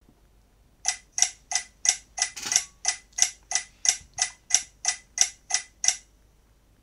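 A steady run of sharp ticks, about three a second, starting about a second in and stopping about a second before the end.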